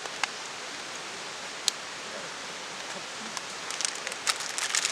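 Wood campfire crackling: sharp pops over a steady hiss, with a quick run of crackles near the end.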